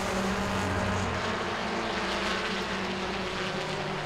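Engines of several Super Truck racing pickups running hard around a short oval, a steady mix of overlapping engine tones; one tone drops a little in pitch near the end.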